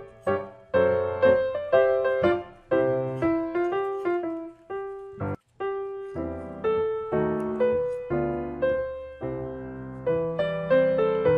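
Background piano music: a steady melody of struck notes, each fading away. It cuts out for a split second about five seconds in, then carries on.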